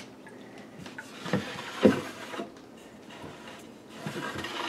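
Bamboo cutting board being shifted by hand on the stainless-steel sink, giving a few light knocks and rubs; the loudest knock comes about two seconds in.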